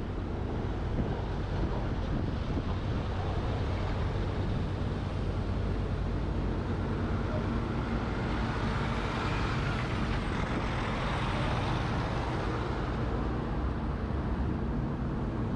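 Steady road, engine and wind noise from a moving truck, picked up by a camera on its roof. A louder hiss swells up about halfway through and fades again a few seconds later.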